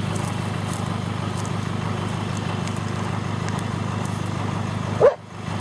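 Engine of a small flatbed truck idling steadily. A brief, louder pitched sound cuts in about five seconds in.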